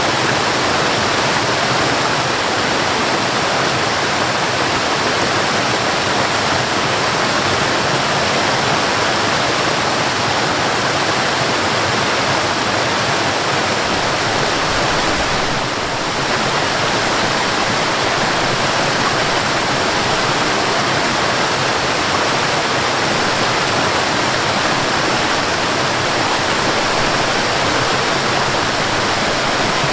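Waterfall: a steady, unbroken rush of falling water, with a brief slight dip in level about halfway through.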